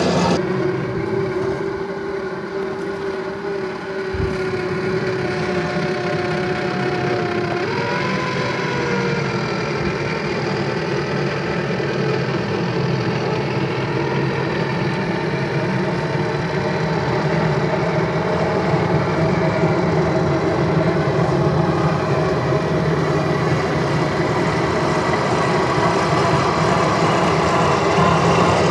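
Electric motors and gear drivetrains of radio-controlled scale crawler trucks whining as they crawl slowly, the pitch holding steady for seconds and then shifting as the throttle changes.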